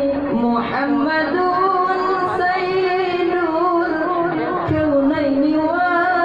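Solo voice singing Arabic devotional chant in a melismatic style, drawing out long wavering notes with vibrato.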